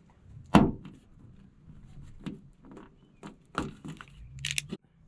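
Utility knife cutting the tip off a small plastic cap: a handful of sharp clicks and snaps, the loudest about half a second in and a quick cluster of them near the end.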